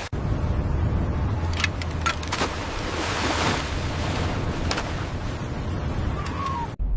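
Wind and sea noise on a fishing boat's deck over a steady low rumble, with a few sharp knocks.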